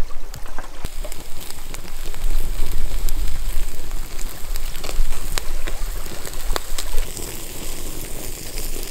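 Food sizzling and embers crackling on a wood-fired fire-bowl grill: a steady hiss scattered with sharp pops, over a low rumble of wind on the microphone.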